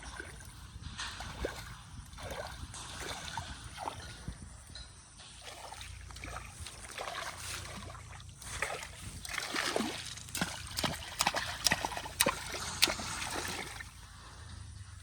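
Splashing and sloshing in shallow muddy water, growing into a quick run of sharp slaps and splashes in the second half.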